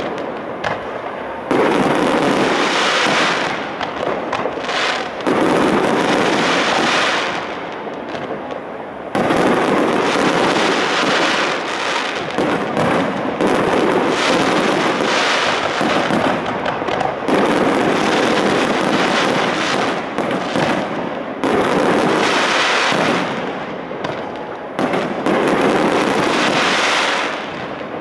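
Fireworks display: a dense, continuous barrage of shell bursts in quick succession. It swells in loud waves that start abruptly every few seconds.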